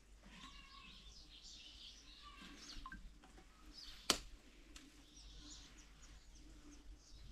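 Small birds chirping and twittering in many short high calls, with one sharp click about four seconds in.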